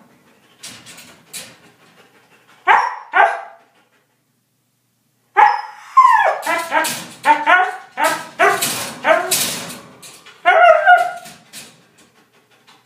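Siberian husky shut in a crate, barking and yipping: two short calls about three seconds in, then after a pause a long, rapid run of barks and yips that bend up and down in pitch, dying away near the end.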